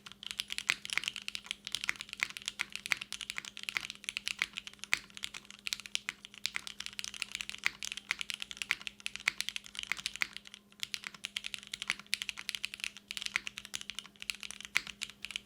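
Continuous fast typing on a custom mechanical keyboard: a Singakbd Kohaku with a polycarbonate case, an aluminium plate, lubed and spring-swapped VB Black linear switches and GMK doubleshot keycaps. Dense, irregular keystrokes, with a short pause about ten and a half seconds in.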